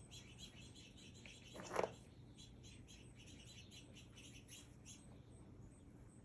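Faint, rapid chirping of small birds, many quick high notes over the first five seconds. One brief, louder pitched note sounds about two seconds in.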